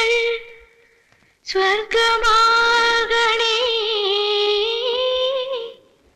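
A woman singing a slow Malayalam song in a single voice: a held note dies away just as it begins, then after a short breath comes one long phrase of drawn-out, wavering notes that fades near the end.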